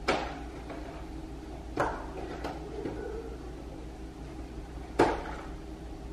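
Three sharp knocks of a cardboard cereal box and dishes being handled on a stone kitchen countertop, the loudest about five seconds in as the box is set back down. Quiet room tone between them.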